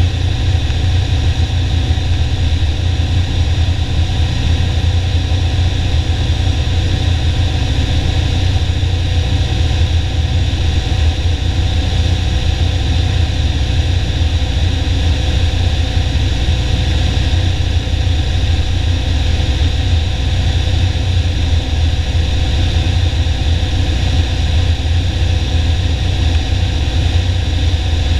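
Piper Warrior's four-cylinder Lycoming engine and propeller droning steadily in flight, heard inside the cabin.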